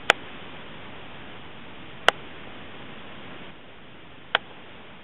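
Steady hiss from a camera's microphone in a quiet room, broken by three sharp clicks about two seconds apart.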